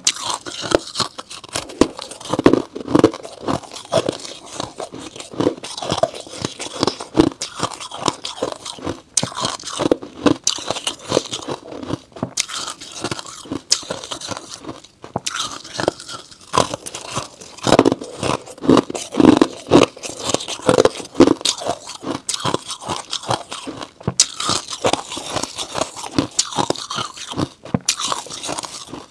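Freezer frost being bitten and chewed: dense, irregular crunching, with a few short pauses.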